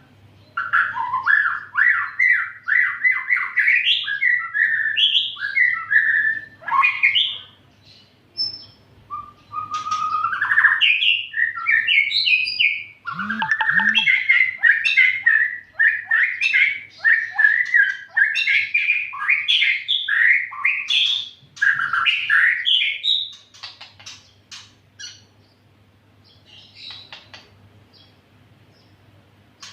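White-rumped shama (murai batu) singing a long, varied song of rapid whistled phrases, broken by two short pauses, then dropping to faint scattered chips near the end.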